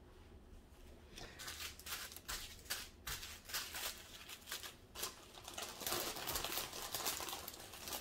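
Small plastic zip-lock bags full of diamond-painting drills crinkling and rustling as they are picked up and moved by hand, with many small clicks, starting about a second in and getting busier toward the end.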